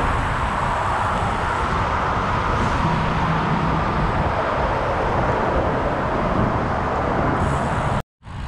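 Steady rush of wind and rolling noise from a road bike being ridden at speed, with highway traffic mixed in. It cuts off abruptly for a moment near the end.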